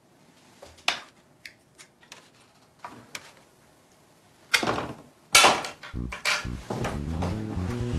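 A spoon clinking lightly against a bowl and a metal compartment meal tray several times, then two loud bangs a little under a second apart. Music comes in near the end.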